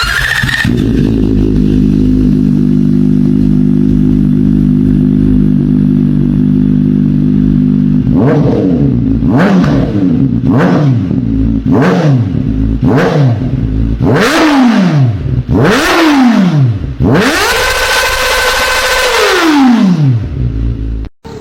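Kawasaki ZX4RR inline four-cylinder engine with an aftermarket muffler, idling steadily and then revved: a series of quick blips about once a second, two bigger revs, then a rev held high for about two seconds before falling back.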